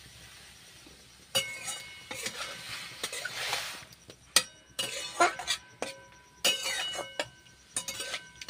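Flat metal spatula stirring chopped pineapple in a metal kadai, scraping and clinking against the pan. It starts about a second in and goes on in repeated strokes, the sharper hits leaving the pan ringing briefly.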